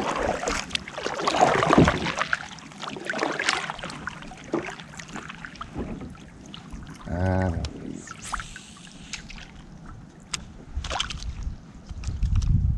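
Kayak paddling: paddle strokes splashing water, loudest in the first two seconds, with scattered sharp knocks and clicks. A brief low hum comes about seven seconds in.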